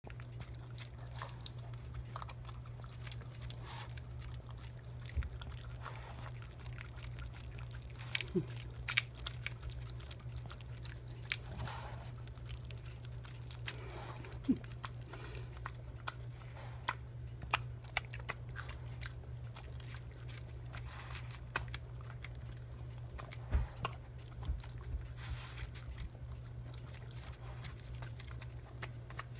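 Small dog eating soft food from a paper plate: irregular wet chewing and smacking clicks, over a steady low hum.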